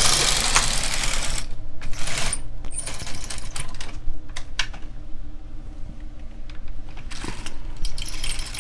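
Silver Reed LK150 knitting machine carriage being pushed along the needle bed to knit a row of tuck stitch, with a rattling run of rapid clicks and clacks from the carriage and needles.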